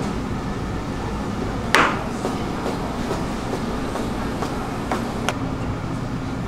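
A few sharp knocks of a broad knife chopping through dough onto a floured worktable, the loudest about two seconds in, over a steady low hum.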